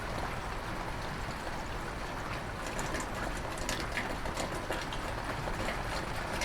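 Steady rain: a continuous hiss with scattered individual drops ticking sharply throughout.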